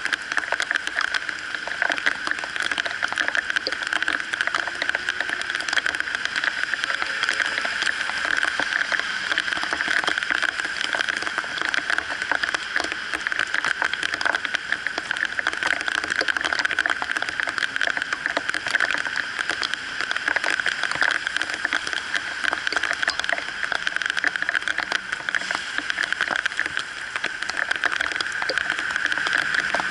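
Steady rain falling on a wet street, a constant hiss with dense fine tapping of drops, and cars passing now and then on the wet road.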